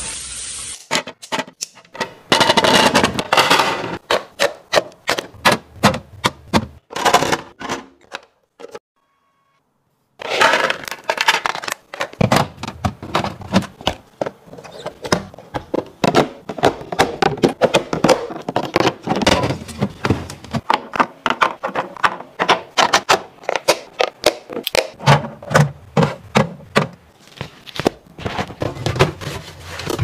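Rapid clicks, taps and knocks of plastic food-storage containers, lids and produce being handled and set down. A kitchen tap runs briefly and stops about a second in.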